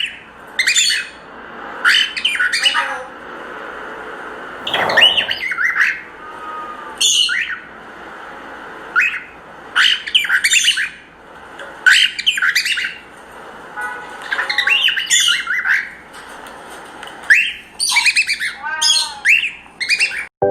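Cockatiel squawking in short, harsh bursts every second or two while wrestling over a toothpick.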